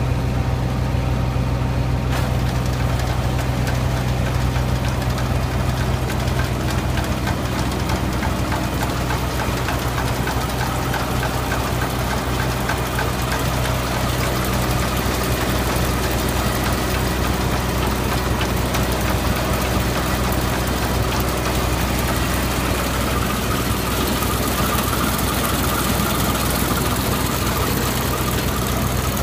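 Yanmar combine harvester's diesel engine running steadily at an even speed, a constant low hum with mechanical clatter on top.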